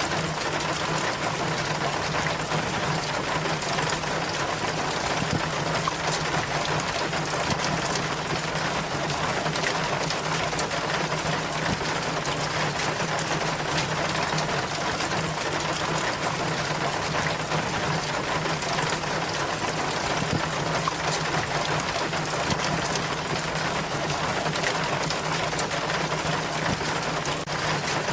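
Rainwater streaming and splashing down a rain chain: a steady, unbroken rush of water, with a steady low hum underneath.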